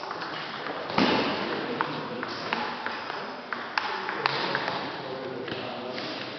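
Table tennis ball clicking off bats, table and floor at uneven intervals, with one loud thump about a second in and faint voices echoing in a large sports hall.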